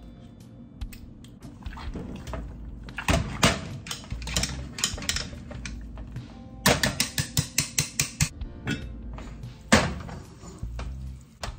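Metal fork clinking and scraping against a stainless-steel saucepan while mashing potatoes, in quick runs of strikes, with background music. One louder metal clank comes near the end.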